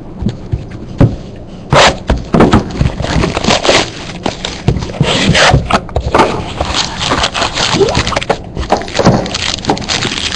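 Hands opening a box of trading cards: a couple of knocks about a second in, then continuous rustling, scraping and tearing of wrapper and cardboard with many small clicks.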